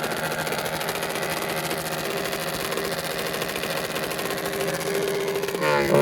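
Honda Super Cub motorcycle engine running steadily at raised revs, then quick throttle blips near the end that rise and fall in pitch and get louder.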